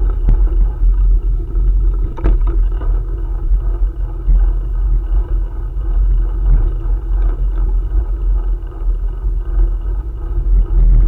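Steady low rumble of wind buffeting the microphone during a bike ride, with a few sharp clicks.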